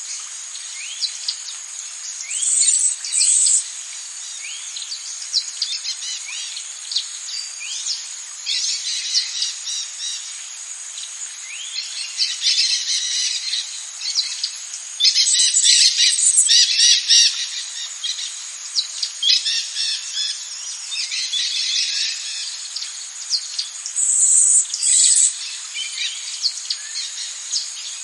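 Tropical rainforest ambience: a steady high-pitched insect drone under many birds chirping and calling, with short repeated rising chirps. Denser, louder bursts of calls come a few seconds in, around the middle and near the end.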